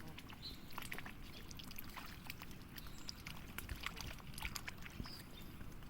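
Ducks feeding on thrown bread: faint, irregular small clicks and wet pecking of their bills, with a couple of brief high chirps.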